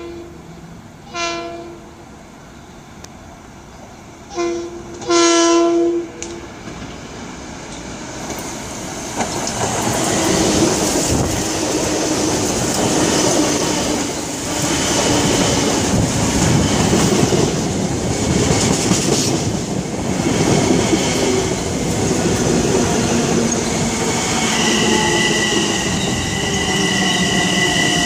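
Long Island Rail Road commuter train sounding its horn: a short blast about a second in, then a short and a longer blast a few seconds later. It then rolls in and passes close by, with a rising rumble and wheel clatter, and a steady high squeal sets in near the end.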